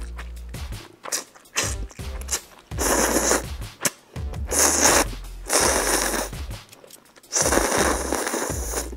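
Instant noodles being slurped into the mouth in a series of long, hissing sucks, each lasting about a second, with the longest near the end.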